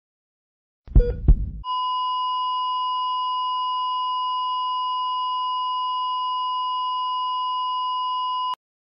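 Two loud low thuds in quick succession about a second in, then a steady electronic test tone at one high pitch, held for about seven seconds before it cuts off suddenly.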